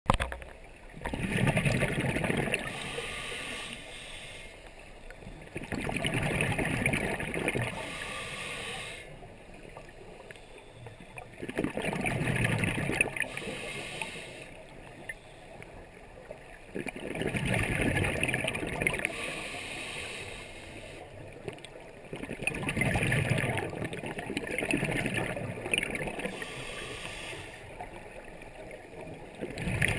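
A scuba diver's exhaled bubbles from the regulator, rumbling and gurgling in regular breaths, about six in all, one every five to six seconds, heard underwater, with quieter stretches between them.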